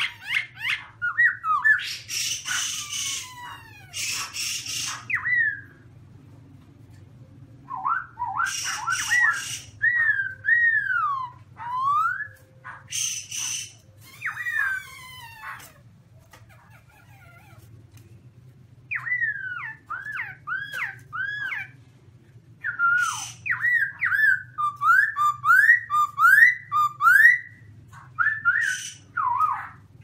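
Black-throated laughingthrush singing loudly in phrases of quick, swooping whistled notes, with a few harsher rasping notes mixed in. The phrases are broken by short pauses, the longest about two-thirds of the way through.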